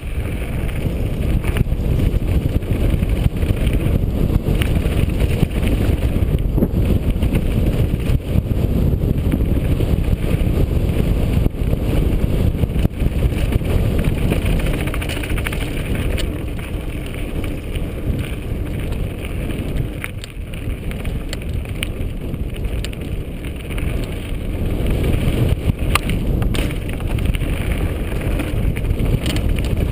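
Mountain bike running fast down a loose rocky trail: a constant rough rumble of wind on the microphone and tyres over gravel, with scattered sharp clicks and rattles from stones and the bike.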